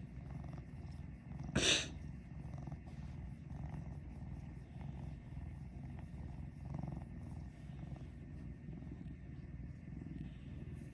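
Brown tabby cat purring steadily in a low rumble, with one short, louder noise about a second and a half in.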